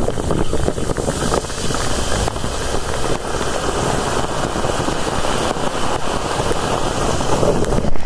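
Steady rushing noise, even and unbroken.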